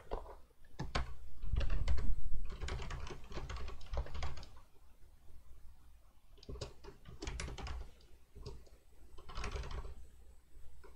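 Typing on a computer keyboard: rapid key clicks in several bursts with short pauses between them, and a heavier low thud about two seconds in.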